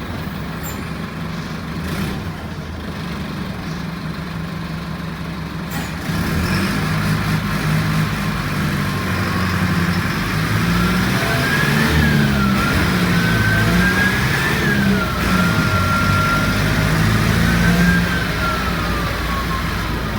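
Mercedes-Benz OF-1722M city bus's diesel engine running and pulling harder about six seconds in. From about ten seconds a thin whine rises and falls several times with the engine. This is likely the strange noise the bus is known for.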